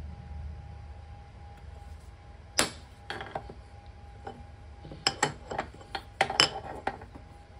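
Ball-peen hammer striking a center punch on a metal lathe chuck adapter plate, marking hole centres for drilling. One sharp metallic tap comes a couple of seconds in, then a few lighter ones, then a quick cluster of taps and clinks in the second half.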